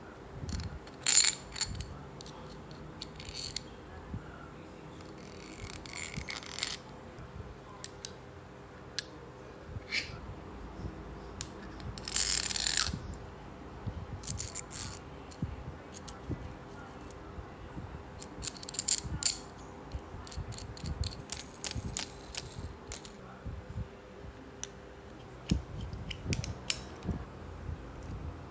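Small metal bicycle hub parts being handled: irregular sharp metallic clicks and clinks, with a few short rustling bursts over a steady low hum.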